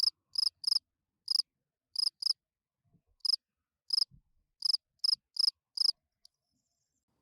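Field cricket chirping: about a dozen short, high chirps at uneven intervals, then stopping about six seconds in.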